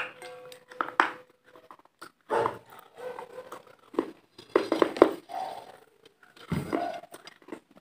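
Close-miked eating sounds: chewing, lip smacks and wet mouth clicks right against a handheld lavalier microphone, coming in irregular bursts with short gaps.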